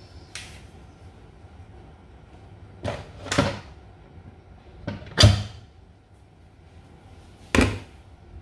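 Lid of a Noxxa electric pressure cooker being twisted open and lifted off once cooking is done: several short clunks, the loudest about five seconds in.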